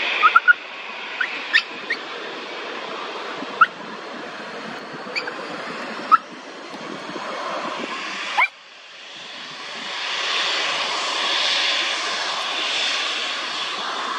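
Airliner jet noise mixed with wind on the microphone, over which a dog gives short rising whines several times in the first eight seconds. About eight seconds in the sound cuts off abruptly, and a taxiing jet's engine noise then swells and eases.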